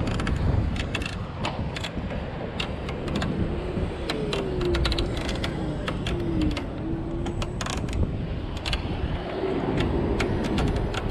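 Cargo e-bike with a box on its front rack rattling and clattering as it rolls over rough pavement, over a steady road and wind rumble. A few short wavering tones glide up and down about halfway through.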